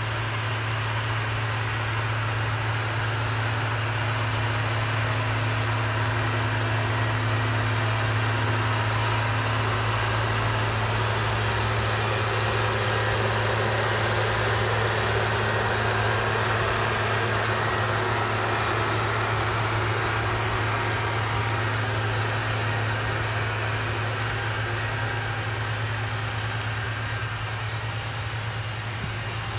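New Holland TS6.125 tractor's diesel engine running steadily as it pulls a 36-disc harrow, with a strong low hum; it fades a little near the end as the tractor moves away.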